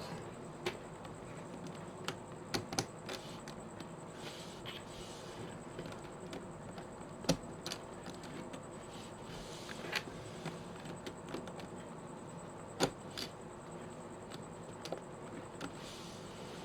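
Plastic pieces of a 5x5 puzzle cube clicking and snapping as they are fitted back into the half-assembled cube, in irregular faint clicks with a few sharper snaps, about 7, 10 and 13 seconds in.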